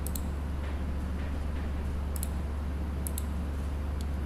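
A few computer mouse clicks, each a quick press-and-release pair, about two seconds apart, over a steady low hum.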